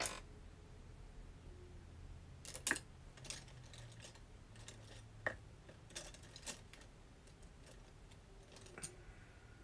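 Irregular light clicks and knocks of makeup cases and containers being rummaged through and handled, as someone searches for an eyeshadow.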